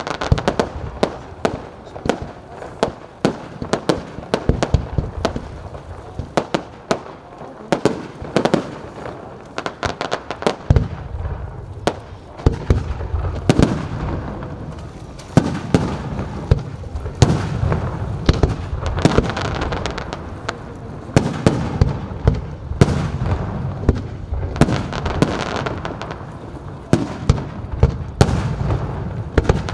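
Fireworks display: a rapid, dense run of shell bursts and crackling, with deeper booms filling in from about a third of the way through.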